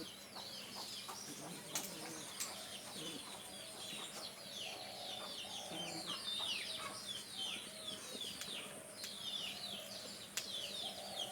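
Birds chirping densely: many short, high calls that slide downward, with a few lower clucking calls in the middle and near the end.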